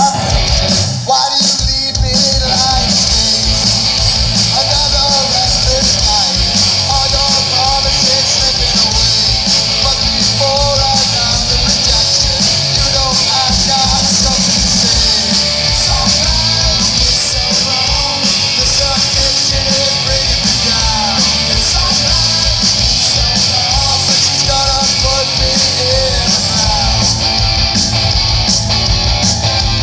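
Live rock band playing loud: a male vocalist singing over electric guitars, bass guitar and drums.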